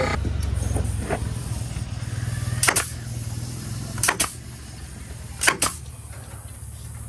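Wire fencing being stapled to a wooden frame: three pairs of sharp strikes about a second and a half apart, over a low steady hum.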